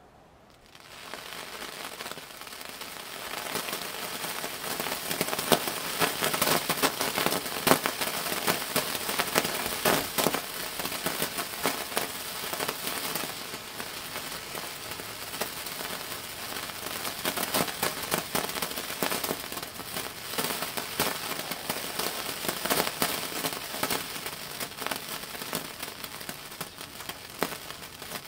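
A lump of white phosphorus catching fire on its own in air and burning, with a dense crackling hiss full of sharp pops. The sound starts about a second in and grows louder over the next few seconds.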